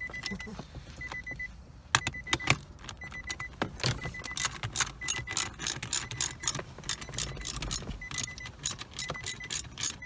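Hand ratchet clicking in quick uneven runs as bolts are driven on an automatic shifter assembly. A short high beep repeats about once a second behind it.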